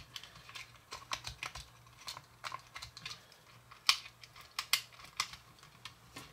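Irregular light plastic clicks and taps as a battery-operated toy flying eagle is handled and its battery compartment opened, with one sharper click about four seconds in.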